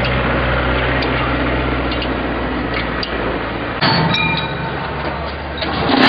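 Concrete block making machine running with a steady low hum. Almost four seconds in the hum drops away and metal clinks and clatter from the steel mould parts being handled take over, growing louder near the end.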